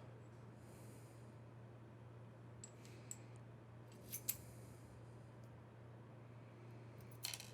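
Near silence with a faint steady hum, broken by a few small metallic clicks of lock parts being handled, about three, four and seven seconds in.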